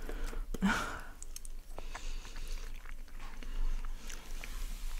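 Close-miked chewing and wet mouth sounds of someone eating poutine, with scattered small clicks and scrapes as a wooden fork picks through the food in an aluminium foil tray.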